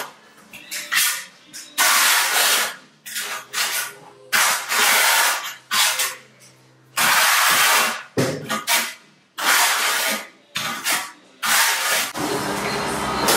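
Trowel scraping tile adhesive across the back of a long wood-look tile (back-buttering), in a series of rasping strokes about a second long every couple of seconds, with shorter scrapes between. Background music comes in near the end.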